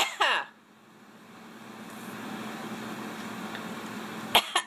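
Quaker parrot making short, sharp squawks whose pitch drops quickly at the start. A soft hiss then swells slowly and holds for a few seconds. Near the end come more clicks and quick falling squawks.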